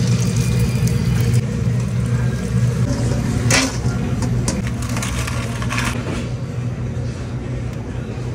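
Steady low mechanical hum of commercial kitchen equipment. From the middle on come brief rattles and scrapes as freshly fried fries are tossed in a steel bowl.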